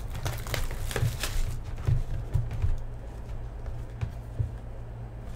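Plastic shrink wrap crinkling and a cardboard card box rustling as the sealed box is handled and turned over in the hands, a run of short crackles mostly in the first three seconds. A steady low hum runs underneath.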